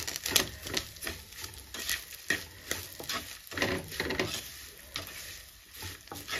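Wooden spatula stirring and scraping dry-fried anchovies and potato slices around a clay cooking pot, in irregular repeated strokes.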